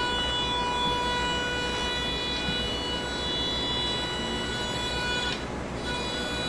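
Electric drive motors of a power-wheelchair robot base whining steadily as it rolls, a high whine with several even overtones over a low rumble. The whine drops out briefly a little after five seconds in, then picks up again.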